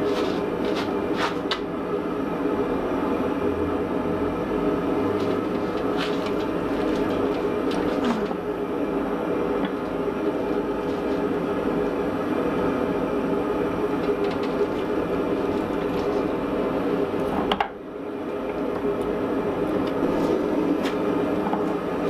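Hydraulic forging press running with a steady hum while its die presses into a red-hot steel hammer head, with a few sharp clicks, the loudest about three-quarters of the way through.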